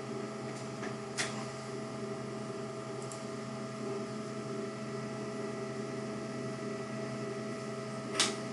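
Steady electrical hum with a few faint unchanging tones in it, broken by a short sharp click about a second in and another near the end.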